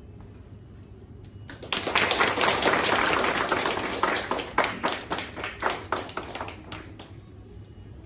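A small group applauding: the clapping starts suddenly about two seconds in, is dense for a couple of seconds, then thins to scattered claps and dies away near the end.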